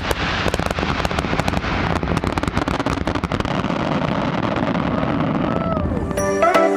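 Fireworks display: a dense run of crackling pops and bangs over a steady rumble, thinning out toward the end. Music comes in just before the end.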